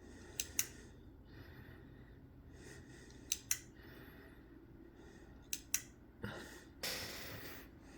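Clicking from a cab control panel's flasher circuit under test: three pairs of sharp clicks, each pair a fifth of a second apart, repeating about every two and a half seconds. A breath close to the microphone comes near the end.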